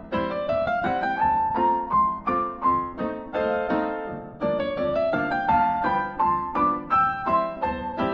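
Background piano music: a light melody with rising runs of notes.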